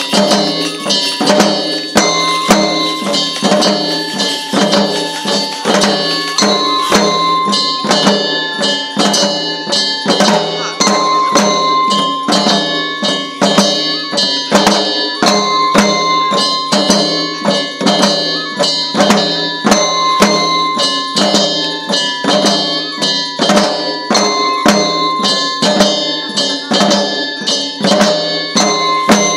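Japanese shishimai lion-dance festival music: a taiko drum and clanking metallic percussion beating a steady fast rhythm under a high melody of held notes from a bamboo flute.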